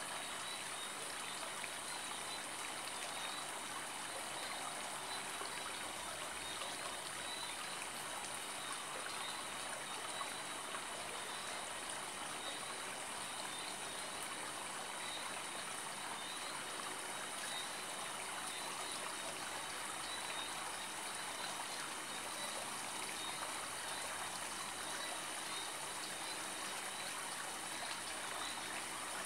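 Steady cabin noise of a Boeing 777-200 airliner in cruise: an even rush of airflow and engine noise with faint steady high-pitched whines.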